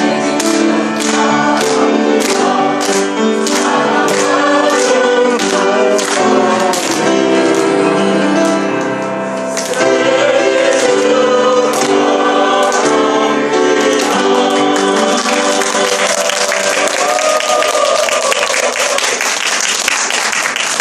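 A group singing a birthday song together, led by a man's voice over a microphone, with hand-clapping on the beat about twice a second. The singing ends about fifteen seconds in and gives way to applause.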